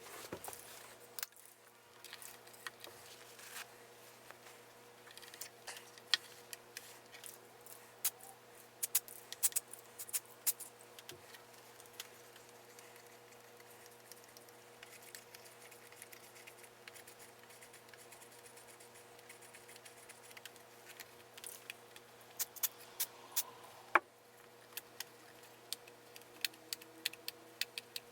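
Scattered small clicks, taps and light metallic rattles of guitar hardware and tools being handled while a 1970s Fender Telecaster Deluxe is taken apart, over a steady electrical hum. One sharper click stands out near the end.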